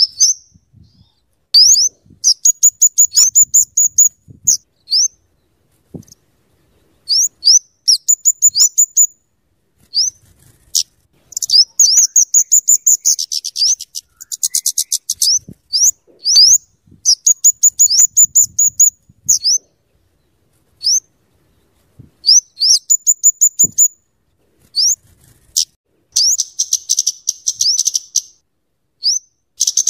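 Flowerpecker (kemade or cabe-cabean) calling: runs of rapid, very high, sharp chipping notes separated by short pauses, with a fast buzzy rattle about halfway through.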